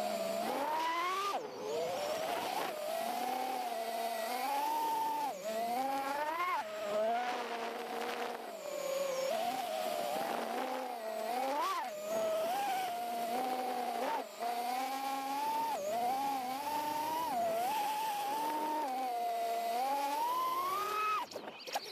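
Brushless motors and propellers of a Diatone GTR349 FPV quadcopter, heard from a camera strapped to its frame: a whine whose pitch keeps rising and falling with the throttle through freestyle flying, dipping briefly near the end.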